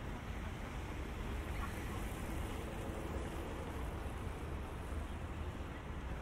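Rain on a wet city street: a steady, even hiss with a low rumble underneath.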